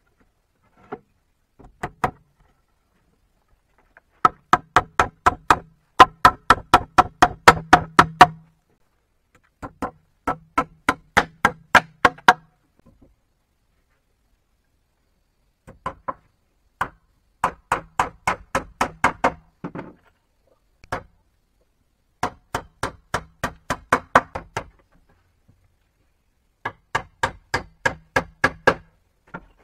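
A tool striking wood in quick runs of blows, about three or four a second, with short pauses between runs; each blow has a short pitched ring.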